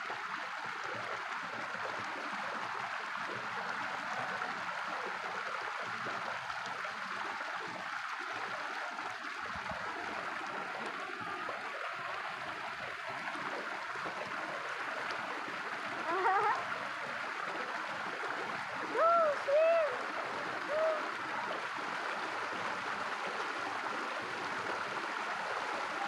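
Stream water running steadily over rocks in a small cascade. About two-thirds of the way through come a few short, high, rising-and-falling cries, three of them close together.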